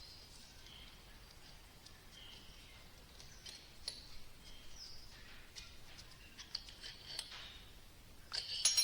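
Faint, scattered metal clicks and clinks as a hydraulic vane pump cartridge is taken apart by hand, with a louder rattle of parts near the end. Faint, repeated bird chirps can be heard behind it.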